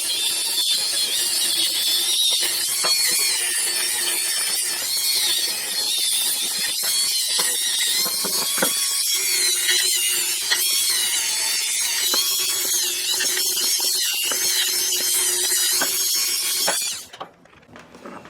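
Dremel rotary tool spinning a small wire brush against the inside of a steel ratchet head: a continuous high whine and scrubbing hiss with a wavering pitch, which stops abruptly near the end.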